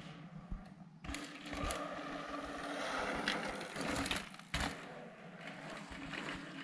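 Mountain bike riding past on a dirt trail: tyres rolling over the dirt with mechanical rattles and clicks, growing louder as it comes by about four seconds in, with a sharp knock just after.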